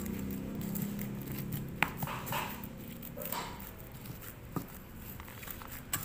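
Fried potato chunks being pounded with a pestle in a stainless steel bowl: soft mashing with a few sharp knocks of the pestle against the bowl, the loudest about two seconds in.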